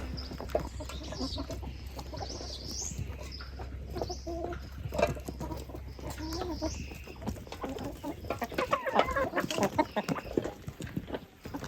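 Domestic chicken clucking: a string of short calls, with some higher chirps. A steady low hum runs under the first half, and a run of quick clicks and taps comes in the last few seconds.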